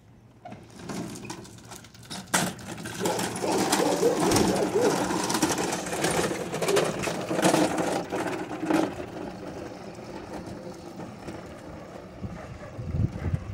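Honda walk-behind lawn mower pushed by hand over concrete sidewalk, its wheels and deck rattling and clicking, loudest in the middle and easing off in the last few seconds.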